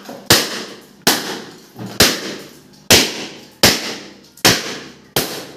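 Rubber party balloons bursting one after another as a pin held in the mouth pricks them: seven sharp pops, a little under one a second.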